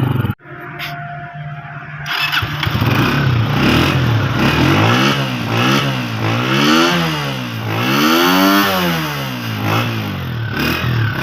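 Honda CG125's single-cylinder engine idling, then revved in a run of quick throttle blips, the last and biggest a little after the middle, before dropping back to idle.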